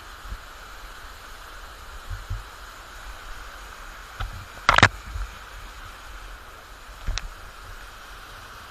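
Steady rushing of a waterfall. Low bumps run underneath, with a sharp loud click a little under five seconds in and a fainter one about two seconds later.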